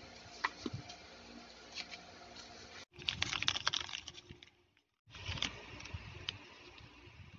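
Hands handling stationery: small taps and clicks, then crinkling of a clear plastic bag and rustling of instant photo prints, loudest about three to four seconds in. The sound cuts out abruptly twice.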